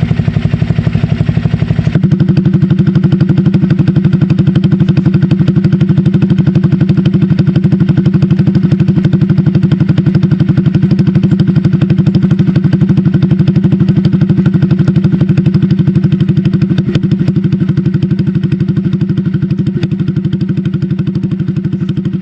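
Honda Click scooter's single-cylinder engine idling steadily through an SC Project aftermarket exhaust fitted with silencers. The exhaust note changes abruptly about two seconds in, then holds an even, steady pulse.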